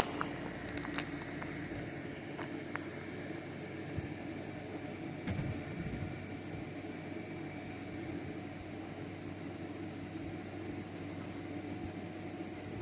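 Steady mechanical room hum with a few faint clicks.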